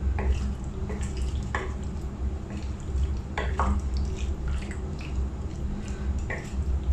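Wooden spoon stirring and folding wet, creamy salad in a glass bowl: soft wet squelching with a few brief knocks and scrapes of the spoon against the glass, over a low steady hum.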